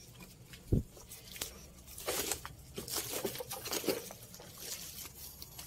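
Leaves and branches rustling and crackling as people push through dense undergrowth on foot, with a single dull thump about three-quarters of a second in.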